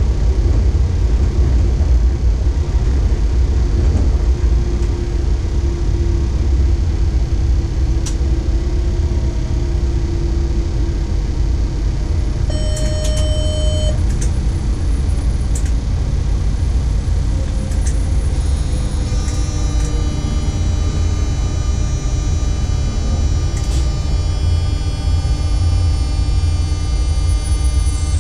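Cab of a ČD class 362 electric locomotive on the move: a steady low rumble of the running gear on the rails, with a whine that slowly glides in pitch. A short electronic beep sounds about 13 s in, and from about 19 s a high whine made of many steady tones sets in.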